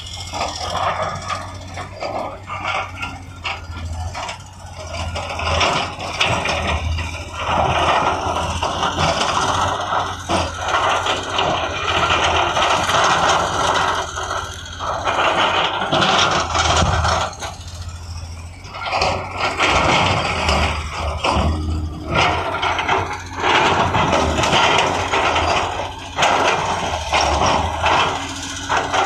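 Heavy diesel earthmoving machine running under load, with scraping and knocking of soil and rock as it works.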